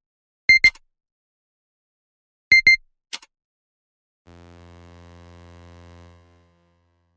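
Electronic alarm-style beeping in two quick double beeps, about two seconds apart, then a single sharp click. After that a low, steady electronic buzz runs for about two seconds and fades out.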